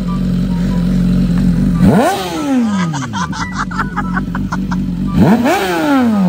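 BMW 1000 cc superbike's inline-four idling through its exhaust, then blipped hard twice, about two seconds in and again near the end. Each time the revs shoot up and fall away, with a quick run of crackles after the first blip.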